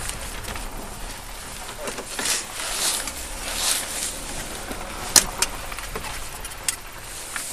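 Rustling and brushing of a body-worn camera against clothing as the wearer shifts in the driver's seat of a car, over a low steady rumble, with a sharp click about five seconds in and a couple of lighter clicks after it.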